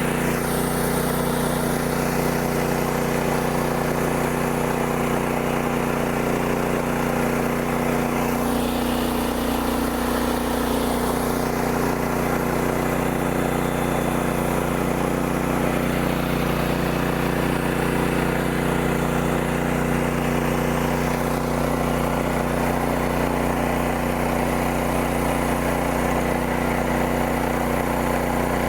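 Woodland Mills HM126 band sawmill's gasoline engine running at a steady speed while its band blade saws a poplar cant into 1x8 boards. The engine drones evenly throughout, with the hiss of the cut rising and falling a few times.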